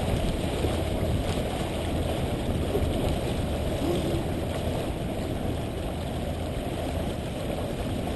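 Steady rush of water along a small sailboat's hull as it sails through choppy water, mixed with wind buffeting the microphone.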